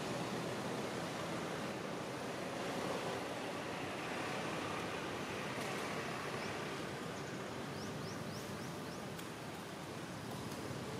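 Steady rushing outdoor background noise with no clear source, and a few faint, short, high rising chirps about two-thirds of the way through.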